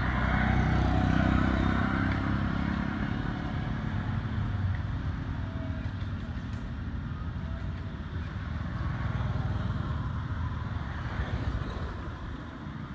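A motor vehicle going by, its low engine rumble swelling in the first couple of seconds, easing off, then swelling again around nine to ten seconds in.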